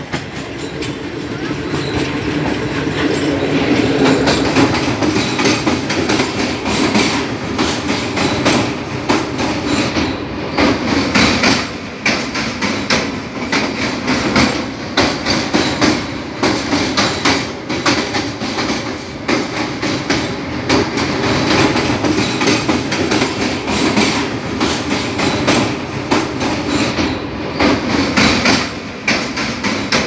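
Passenger train running along the track, its wheels clattering in a dense, continuous rattle over the rails, heard loud through an open carriage doorway.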